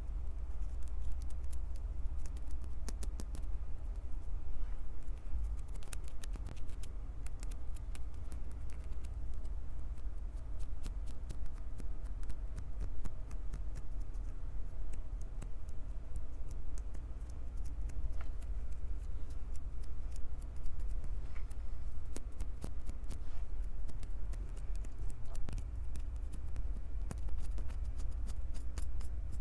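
Hands gripping, rubbing and squeezing a Tascam recorder's microphones: dense rapid crackling and scratching over a low handling rumble.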